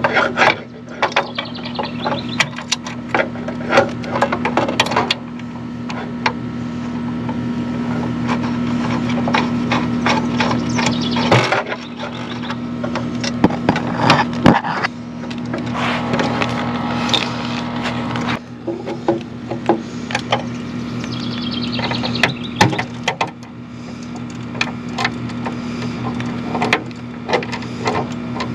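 Clicks, knocks and rattles of hand tools and a metal floodlight mounting strap being fastened under a vinyl soffit, over a steady low hum.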